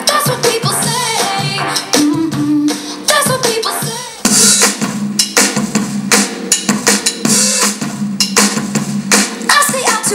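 A pop song with a strong drum beat, kick and snare, played back through a portable Bluetooth speaker. The music dips briefly about four seconds in, then comes back fuller and brighter.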